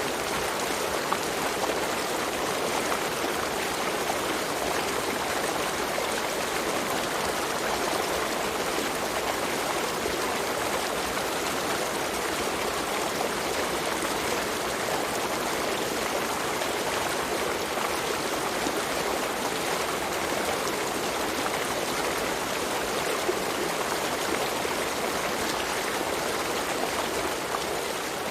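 Steady, unbroken rush of falling water from a mountain waterfall.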